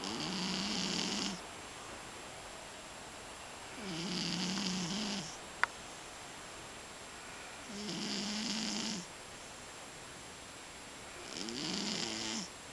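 Scottish Fold cat snoring, four snores about four seconds apart, each lasting over a second. A single short, sharp click comes a little after the second snore.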